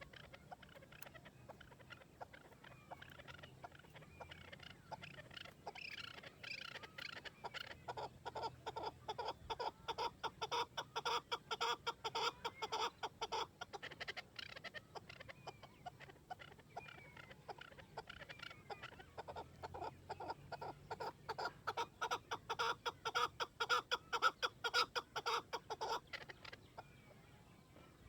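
Chukar partridge (chakor) calling: two long runs of rapid, repeated clucking 'chuk' notes, each building up to a loud stretch and then breaking off, with a pause of several seconds between them.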